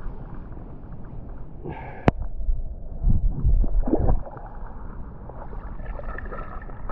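Water sloshing and gurgling around a camera held just under the surface, heard muffled and low, with heavier sloshing a few seconds in and a single sharp click about two seconds in.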